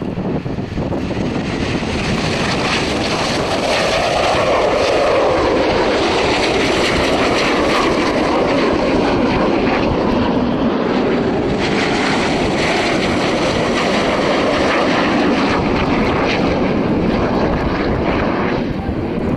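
BAE Hawk T1 jet trainers' Adour turbofan engines: a loud, continuous jet noise that swells about three seconds in, with its pitch sliding down as the aircraft pass.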